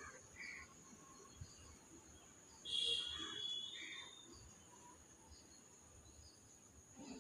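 Faint outdoor ambience: a steady high-pitched insect drone, like crickets, with a few short bird chirps; the loudest is a brief call with a held high note about three seconds in.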